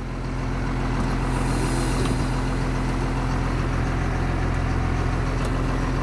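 1996 Blue Bird school bus engine idling steadily while it warms up, heard from inside the bus by the driver's dash. It grows a little louder about a second in.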